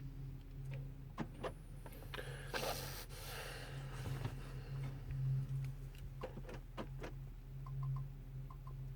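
Handling noises: several sharp clicks and a short rustle about two and a half seconds in, over a low steady hum.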